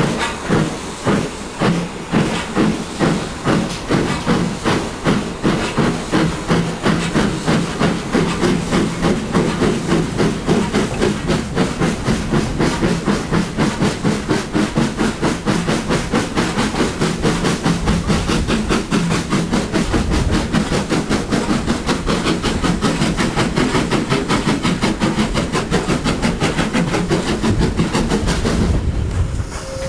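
Steam tank locomotive working a passenger train, its exhaust chuffing in an even beat of about two to three a second, heard from an open carriage window.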